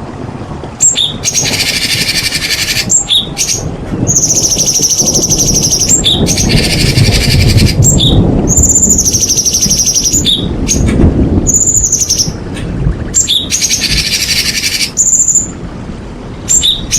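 White-rumped shama (murai batu) singing loudly and continuously. It alternates high, held trilling notes with bursts of rapid buzzy chatter, and sharp whistled notes fall between the phrases.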